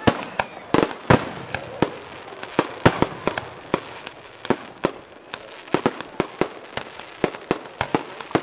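Aerial fireworks shells bursting in quick succession: a rapid, irregular string of sharp bangs, several a second, with crackling in between.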